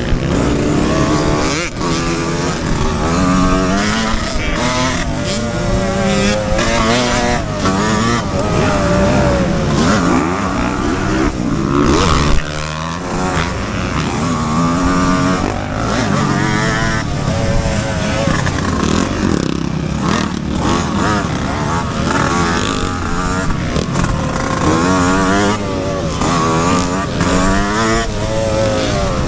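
Two-stroke Yamaha YZ125X dirt bike engine ridden hard, its pitch rising and falling over and over as the throttle is opened and chopped, with brief drops between pulls.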